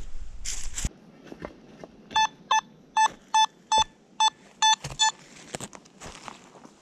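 Nokta Makro Simplex metal detector giving about eight short, identical mid-pitched beeps over some three seconds, one on each sweep of the search coil: the detector signalling a metal target in the ground. A second of rustling comes before the beeps.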